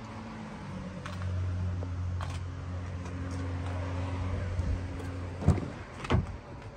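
Steady low hum from the parked Honda Pilot SUV, stronger through the middle. Near the end come two sharp clicks about a second apart as the rear door is opened.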